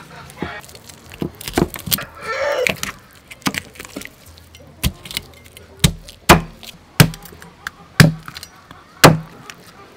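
Cleaver chopping through a whole fish onto a thick wooden chopping block. Lighter knocks and a scrape come first, then six heavy chops about a second apart in the second half.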